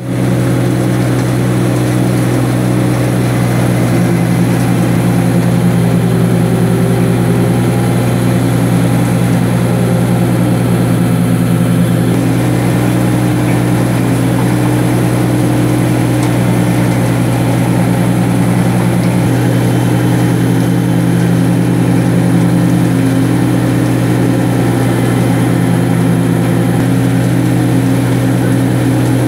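Menta Giromix silage unloader-mixer wagon at work, run from a tractor: a steady, loud machine drone with a low, even hum as its rotating cutter drum mills silage off the silo face into the wagon.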